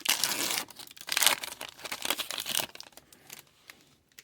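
Foil trading-card pack wrapper crinkling as it is torn open: a dense crackle for about two and a half seconds, then a few fainter rustles and clicks.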